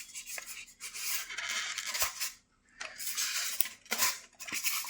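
Plastic packaging rustling and crinkling in stop-start handling, with a few light clinks of small metal parts, as fan fittings are unpacked.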